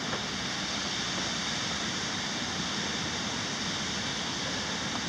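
Creek water rushing steadily, an even hiss that holds level with no breaks.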